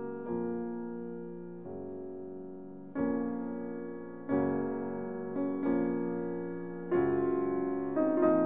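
Slow, gentle background piano music: soft chords struck about once every one to one and a half seconds, each fading away before the next.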